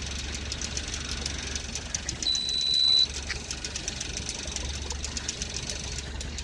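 Fishing boat's engine running at trolling speed: a steady low hum with a fast, even ticking, about six ticks a second. About two seconds in, a high steady tone swells for under a second and cuts off suddenly.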